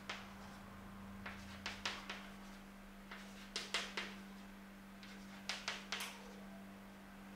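Chalk tapping and scratching on a blackboard during handwriting, in several short clusters of sharp clicks with pauses between them. A steady low hum runs underneath.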